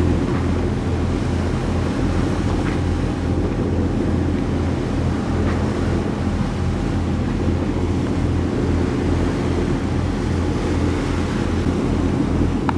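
Wind buffeting the microphone in a steady, fluttering rumble aboard a sailing yacht under way, over the wash of the sea.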